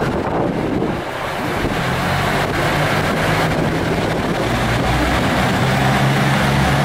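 Cummins diesel engines of a seven-car KiHa 85 series diesel railcar train growling under power as the train pulls away. A deep, steady engine drone builds from about two seconds in and grows stronger near the end.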